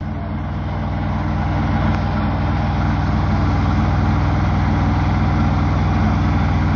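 Tractor's diesel engine idling steadily, with an even, rapid beat.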